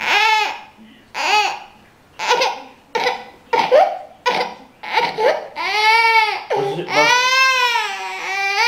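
Toddler crying hard: a run of short sobbing cries about once a second, then two long drawn-out wails in the second half.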